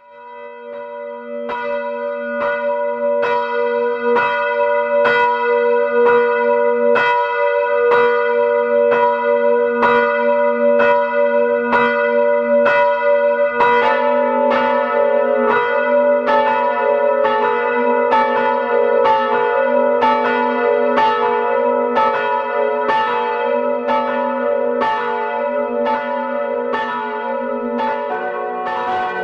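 Church bells ringing, fading in at the start, with an even run of strikes about three every two seconds over a long, sustained hum. About halfway through another bell joins, and near the end the mix of pitches changes again as further bells come in.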